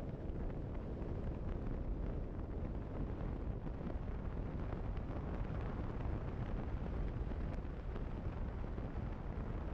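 Wind rumbling over the microphone of a motorcycle riding at road speed, with the bike's running noise mixed in: a steady low noise that never lets up.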